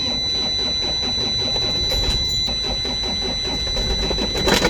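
Starter motor cranking an Isuzu 4HL1 four-cylinder diesel: a rapid, steady churning that grows louder near the end. It cranks laboriously because the battery is weak. A steady high-pitched dashboard buzzer tone sounds underneath.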